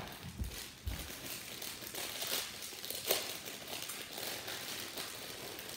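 A plastic snack bag crinkling and crackling irregularly as it is handled and worked open by hand, with a sharper crackle about three seconds in.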